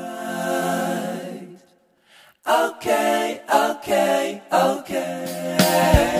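Outro music: a cappella vocal singing in short phrases, with a brief pause about two seconds in.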